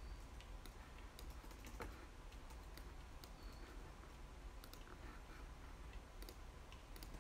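Faint, irregular clicks of a computer mouse and laptop keyboard being worked, over low room hum.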